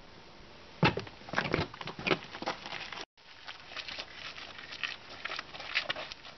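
Footsteps crunching on a gravel driveway, irregular steps with the loudest crunches in the first two seconds; the sound drops out briefly about three seconds in.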